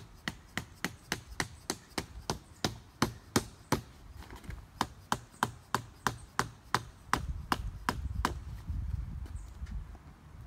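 Rapid, even hammer blows, about three a second, that stop a little past eight seconds in. A low rumble rises toward the end.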